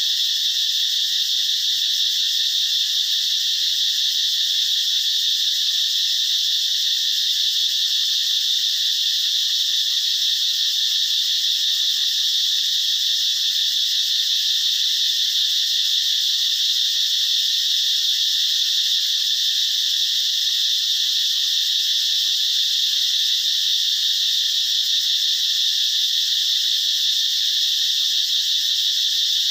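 A dense, steady, high-pitched chorus of calling insects or frogs, a continuous shrill drone that holds the same level throughout.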